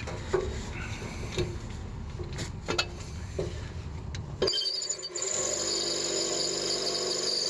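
A handful of short metal clinks from tools working on a seized exhaust bolt. About halfway through, a steady hiss starts abruptly and carries on: a torch being lit to heat the bolt.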